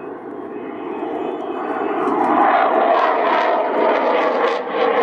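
Fighter jet flying past overhead. Its engine noise swells steadily louder and turns rough and crackling from about two seconds in.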